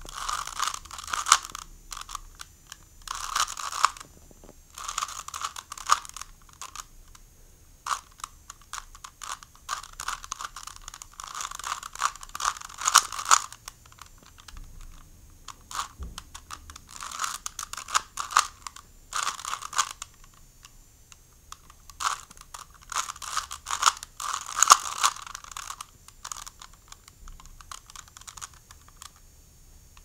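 Plastic 3x3 Rubik's cube being turned by hand: rapid clicking and clacking of the layers as they twist, in bursts a second or a few seconds long with short pauses between.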